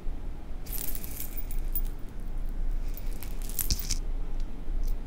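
Rustling, crackling handling noise on a clip-on microphone, lasting about three seconds and then stopping, over a steady low hum.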